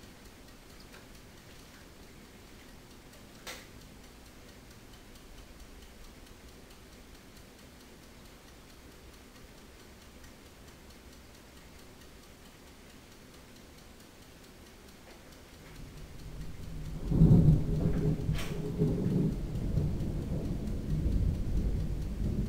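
Thunder: a low rumble begins about two-thirds of the way in, swells quickly to a loud peak and rolls on with further swells. Before it there is only a faint background, broken once by a single sharp click a few seconds in.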